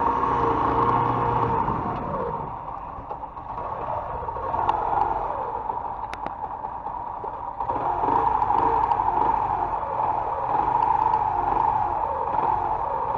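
Mondial MH Drift motorcycle engine running at low speed and idling, with car traffic around it. The sound drops back about two seconds in and comes up louder again about halfway through.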